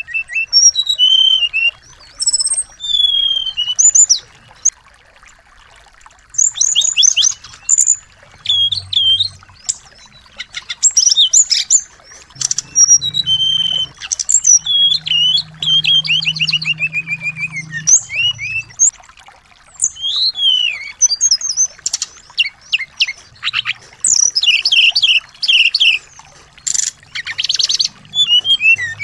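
Small songbirds singing: quick phrases of high chirps, whistled gliding notes and rapid trills, with short pauses between phrases.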